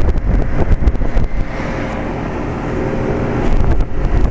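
1998 Trane XL1800 heat pump's outdoor unit running steadily in high-stage cooling: the condenser fan and the 5-ton reciprocating compressor give a constant hum. Wind gusts buffet the microphone in the first second or so and again shortly before the end.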